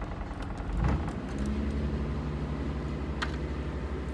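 A sailboat's inboard diesel engine running steadily under way, its low, even-pulsing note growing louder about a second in. A thump comes just before that, and a sharp click near the end.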